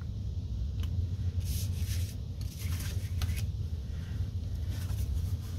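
Sheets of card stock being handled and slid across a cutting mat: a few soft rustles and scrapes of paper over a steady low hum.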